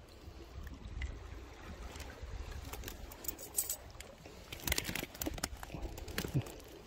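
Handling noise on a rock: scattered sharp clicks and taps as metal forceps and a soft lure are picked up and set down after unhooking a hairtail, over a low steady rumble.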